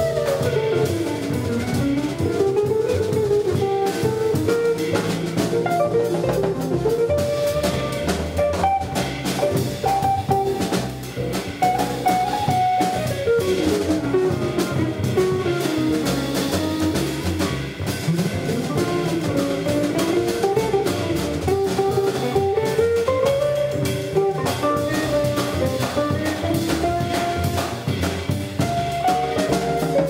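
Live jazz: an archtop guitar plays a winding single-note melodic line over upright double bass and a drum kit.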